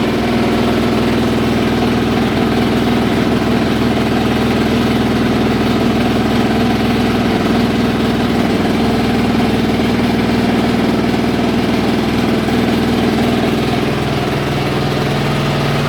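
Haier i-Pro Series 7 washing machine on a 1400 rpm spin, running with a loud, steady, awful-sounding hum and rumble from deep inside toward the back; its pitch drops slightly near the end. The owner suspects premature drum bearing failure.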